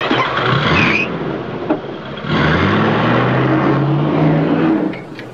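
Car engine revving, likely a sound effect: a first short, noisy burst, then a longer rev held for about two and a half seconds that eases off shortly before the end.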